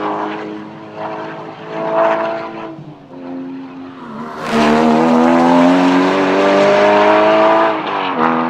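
2015 Porsche Cayman GTS's 3.4-litre flat-six engine at high revs on track, its pitch dipping and climbing as the car lifts and accelerates. About halfway through it gets much louder and the pitch climbs steadily for about three seconds under full acceleration, then drops near the end as the driver lifts or shifts.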